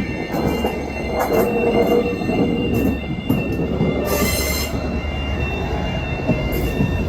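A train running past a level crossing, its wheels rumbling and squealing on the rails, while the crossing's alarm keeps sounding steady high tones.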